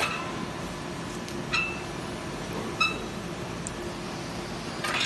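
Light metal-on-metal clinks, three of them a second or so apart, each ringing briefly, over a steady workshop hum; a louder metallic clatter starts right at the end.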